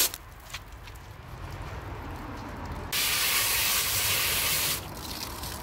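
Water jet from a pistol-grip garden hose nozzle spraying and splashing against a plastic air filter housing, a hissing spray. It gets much louder for nearly two seconds from about three seconds in, then drops back.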